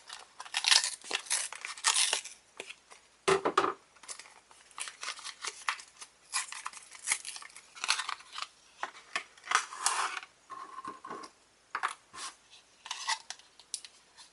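Retail packaging for a multi-tool lighter being torn open and handled: irregular tearing and crinkling with sharp clicks and small knocks throughout.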